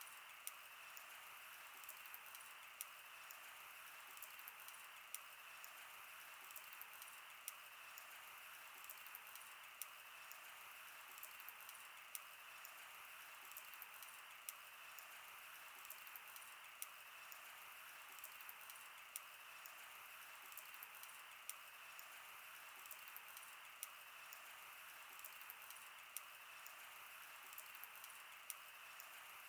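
Wood fire burning: a steady soft hiss with frequent small crackles and occasional sharper pops at irregular intervals.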